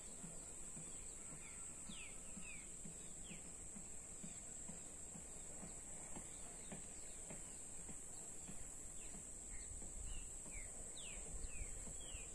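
Outdoor rural ambience: birds give short falling chirps now and then over a steady high-pitched hiss, with wind rumbling on the microphone, stronger near the end.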